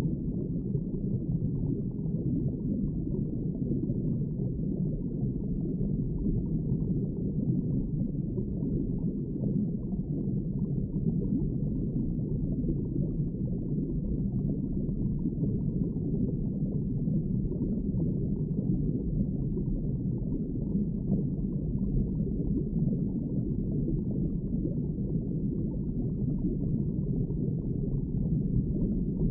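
Underwater ambience: a steady, muffled low rumble of water with nothing higher-pitched and no distinct events.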